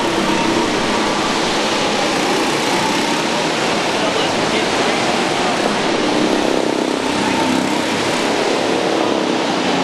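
Steady background hubbub: indistinct voices of a crowd under a constant rushing noise.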